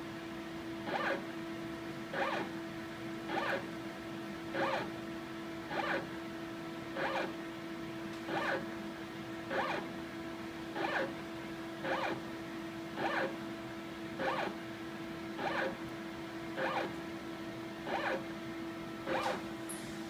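Motorized positioning stage whirring in short, even steps, about one every 1.2 seconds, over a steady hum. It is typical of a hydrophone being stepped point by point through an ultrasound transducer's field in a water tank.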